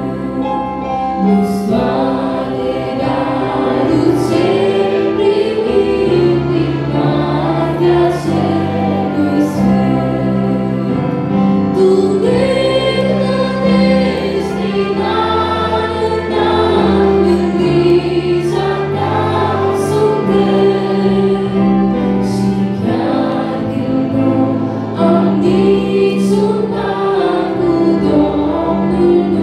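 A young woman singing an old Romanian Christian hymn into a microphone over amplified instrumental accompaniment with held low notes.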